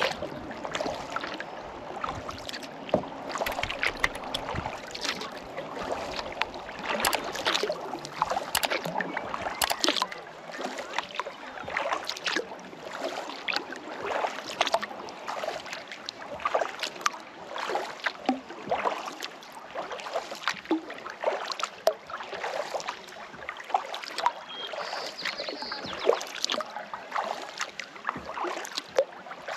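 Sea kayak paddle strokes dipping into the water over and over, with splashing and water dripping off the paddle blades.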